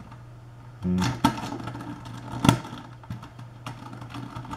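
Hard plastic pieces of a cheap 3x3 speedcube clicking and snapping as popped-out pieces are pressed back into the cube by hand. A handful of separate clicks, the loudest about two and a half seconds in.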